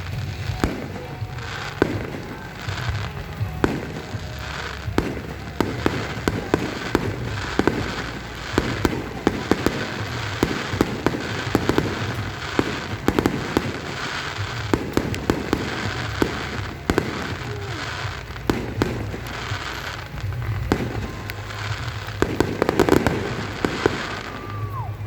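Fireworks display: a steady run of booms and crackling pops, several a second, with the loudest cluster of bursts near the end.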